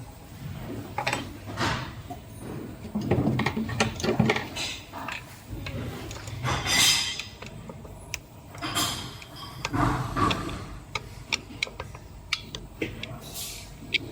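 Connecting rod cap working against a metal plate, with irregular scraping swells, clicks and knocks, and a run of sharp ticks near the end.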